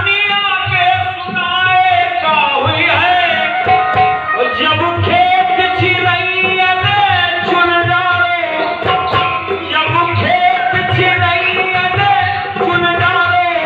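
A voice singing a melody in long, gliding phrases over a steady hand-drum beat.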